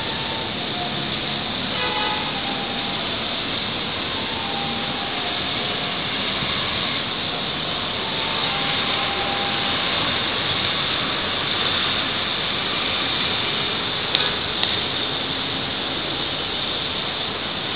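Steady rushing noise inside a moving Shanghai Maglev (Transrapid) train, the air and running noise of the train travelling at speed along its guideway. Two brief knocks come about 14 seconds in.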